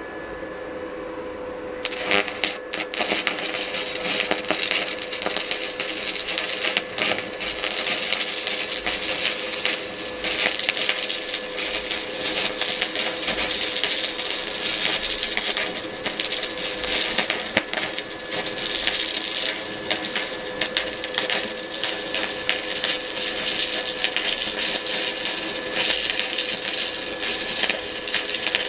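Stick (MMA) arc welding with a 6013 general-purpose rod at about 90 amps. About two seconds in, the arc strikes and crackles continuously over a steady hum from the welder, then cuts off suddenly at the end of the run.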